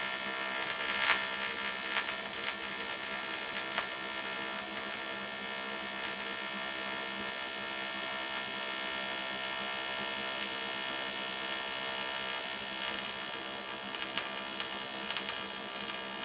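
AC TIG arc from an Eastwood TIG 200 AC/DC welding aluminum, with the AC balance set almost fully to electrode negative (about 95%). It makes a steady electric buzz with a few short crackles.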